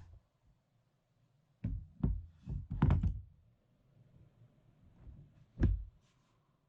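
A series of irregular hard knocks and thumps, like solid objects being handled and set down. A cluster of them comes around two to three seconds in, and one loud thump comes near the end.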